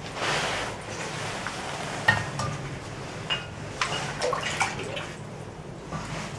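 Water sloshing as someone wades through deep flood water inside a concrete chamber, followed by a series of sharp splashes and plops from about two seconds in until about five seconds in.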